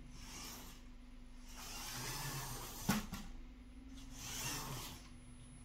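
LEGO Technic 42124 Off-Road Buggy's electric motor and plastic gears whirring, with its tyres rolling on a tile floor, rising and falling in three surges as it drives. There is a sharp knock about three seconds in.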